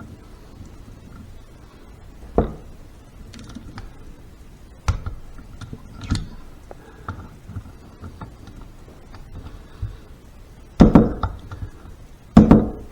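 Torque wrench and socket tightening the door bolts on a Harley 5-speed transmission case: a few sharp metallic clicks spread out, with two louder clacks near the end.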